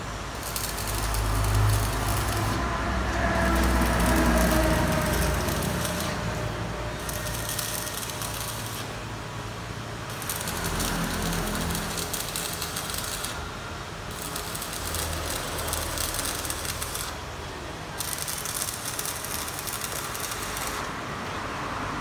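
Angle grinder grinding a large steel pipe. It runs in passes of a few seconds with short breaks as the disc comes off the metal, and a low rumble sits under it for the first several seconds.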